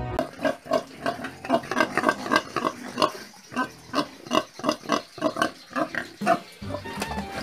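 A pig grunting in a rapid run of short grunts, about three or four a second. Background music comes back in near the end.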